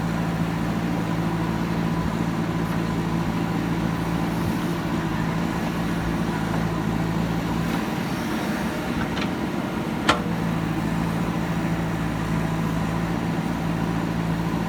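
JCB backhoe loader's diesel engine running steadily. Its steady tone drops away for about two seconds in the middle and then returns, with a single sharp knock about two-thirds of the way through.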